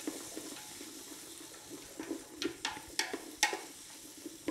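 A slotted wooden spoon stirring diced onion and celery in a metal stockpot over a low, steady sizzle of the vegetables starting to sweat in olive oil. Several sharp clacks of the spoon against the pot come in the second half.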